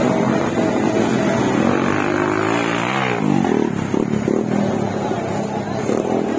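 Motocross dirt bike engines running, with one revving up in a rising pitch about two and a half seconds in.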